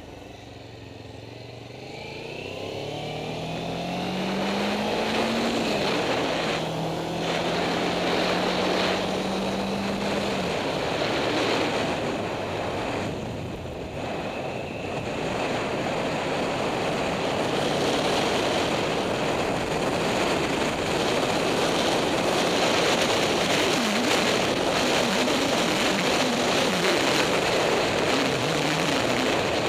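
Motorcycle engine pulling away, its pitch rising, dropping at a gear change about five seconds in, then holding steady. From about ten seconds on, wind rushing over the helmet-mounted camera's microphone at road speed covers the engine.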